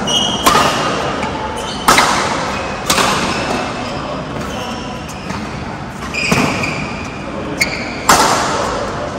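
Badminton rally: sharp racket strikes on the shuttlecock, about five of them with a gap in the middle, echoing in a large hall, with shoes squeaking on the court between shots.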